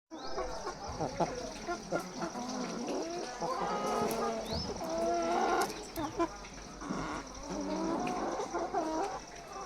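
A flock of broiler chickens calling, many birds at once with overlapping calls that rise and fall in pitch, over a steady high whine.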